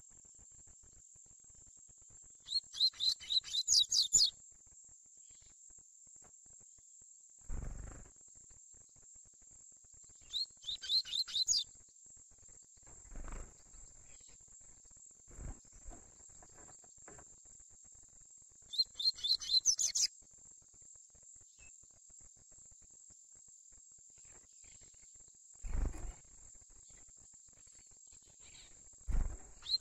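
Coleiro (double-collared seedeater) singing the 'tui tui' song in three short phrases of rapid high notes, roughly eight seconds apart, over a constant thin high insect buzz. A few soft thumps fall between the phrases.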